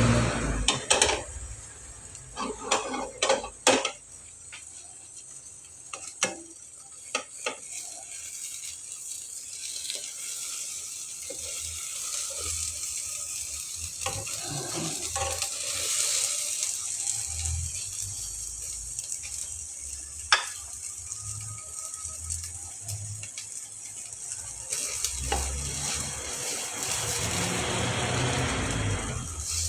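Food frying in a pan with a steady sizzle. A utensil knocks and clinks against the pan several times in the first few seconds, and once more after about twenty seconds.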